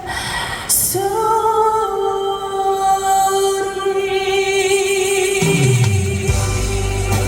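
Live trot ballad: a female singer holds one long note over band accompaniment, the note wavering with vibrato toward the end. At about five and a half seconds a low falling sweep comes in beneath the music as the accompaniment carries on.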